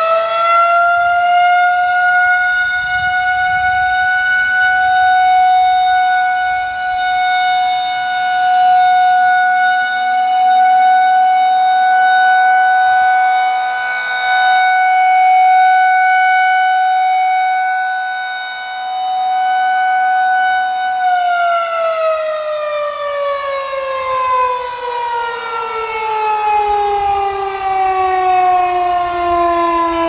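Federal Signal 2001-130 single-tone chopper siren sounding a steady alert. It finishes winding up at the start, then holds one steady tone whose level swells and fades slightly as the rotating head turns. About two-thirds of the way through it winds down, the pitch falling steadily to the end.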